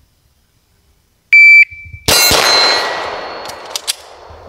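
A shot timer's start beep, then about a second later a single 9mm pistol shot from a Gen 3 Glock 17, with a steel target ringing and slowly fading after the hit. The beep is the loudest thing.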